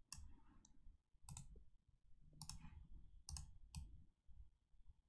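Faint computer mouse clicks, a handful of sharp clicks spread unevenly, some in quick pairs.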